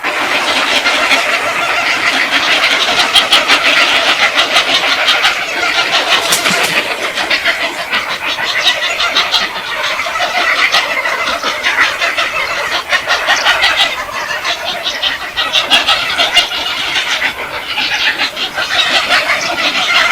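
A flock of birds calling and chattering together: a dense, loud din of many overlapping rapid chirps and squawks.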